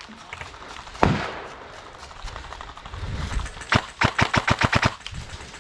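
Airsoft rifle shots: one sharp crack about a second in, another a little past halfway, then a quick string of about nine shots in under a second.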